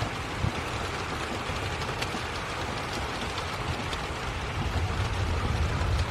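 Heavy rain pouring steadily, with a low rumble underneath that grows stronger near the end.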